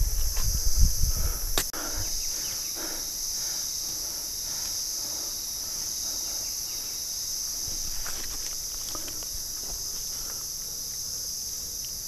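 Steady high-pitched insect chorus, a continuous shrill buzz held at two high pitches without a break. In the first two seconds there is low rumbling and a sharp knock, and soft rustling steps through dry leaf litter follow.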